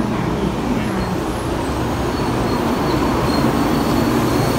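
Taiwan High Speed Rail 700T train running alongside the platform as it pulls into the station: a steady, loud rumble of wheels and running gear, with a faint thin high squeal over it from about a second in.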